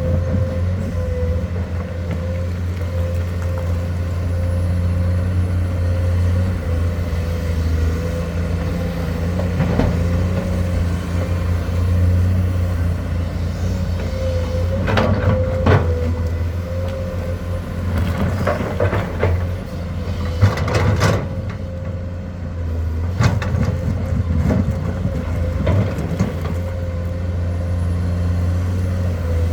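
Komatsu hydraulic excavator's diesel engine running steadily under load, with a constant steady whine above it. Scattered sharp clanks and knocks come through, a few at a time, mostly in the second half.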